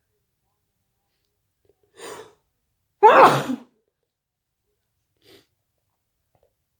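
A person sneezing once, an induced sneeze: a short, softer intake about two seconds in, then the loud sneeze about a second later, followed near the end by a faint short sound.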